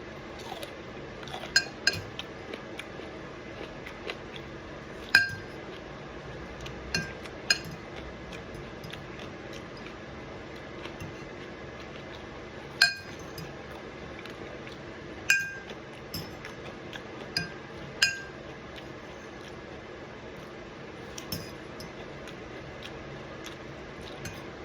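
Eating utensil clinking against a glass dish: about a dozen separate, scattered clinks, each with a short ringing tone.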